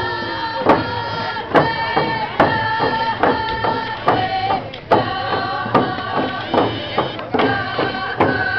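Hand drums struck together in a steady beat, a little more than once a second, with a group singing a chant over them.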